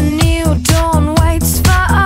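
Upbeat pop-disco soundtrack music with a steady bass beat and a melody line.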